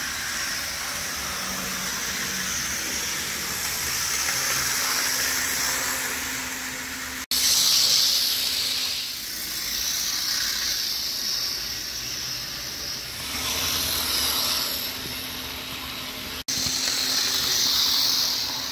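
HO scale Bachmann train set running: the Santa Fe diesel locomotive's motor whirring and the wheels of the locomotive and freight cars rattling along the sectional track, a steady hiss-like rattle. It grows louder each time the train passes close by, and breaks off suddenly twice.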